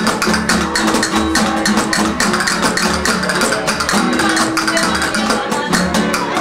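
Live flamenco music: two flamenco guitars strumming and picking, over a rapid run of sharp percussive clicks.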